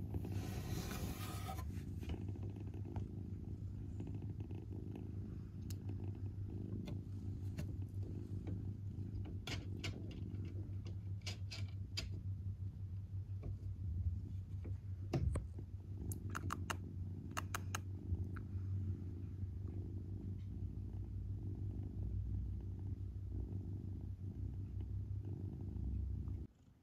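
British shorthair kitten purring steadily, a low, even, finely pulsing purr, with a few faint clicks scattered through it. Its fur rustles briefly under a stroking hand at the start, and the purr cuts off suddenly near the end.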